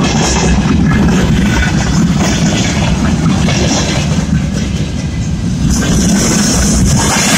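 Freight wagons rolling past close by: a steady rumble and rattle of steel wheels on the rails.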